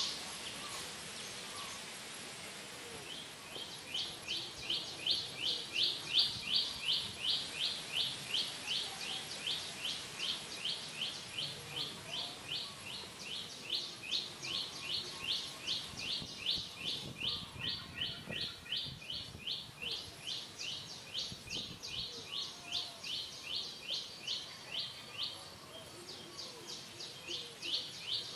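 A bird calling a short, high, slightly falling chirp over and over at about three a second, keeping it up for some twenty seconds with a brief pause near the end, over faint outdoor background noise.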